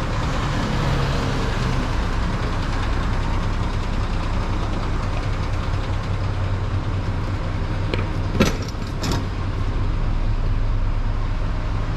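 Mitsubishi Fuso Fighter's 6M60 inline-six turbo diesel idling steadily. A few sharp clicks come about eight seconds in.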